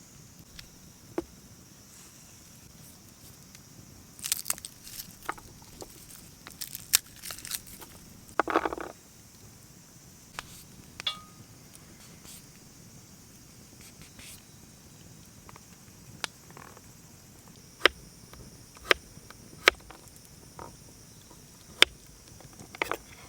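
Wood fire crackling, with sharp pops scattered irregularly and a few quick clusters of them, over a steady faint high hiss.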